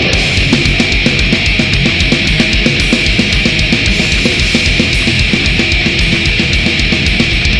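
Heavy metal music: an instrumental passage with a dense, steady wall of band sound over a fast, even drum pulse, with no singing.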